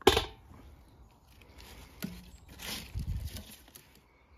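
Hand-harvesting tomatoes. A knock about as a tomato lands in a copper pan, then quieter rustling of tomato plant foliage as more tomatoes are picked.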